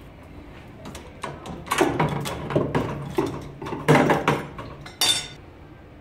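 Tube cutter being turned around a copper pipe: a run of metallic scraping clicks, with one sharper metallic clink about five seconds in.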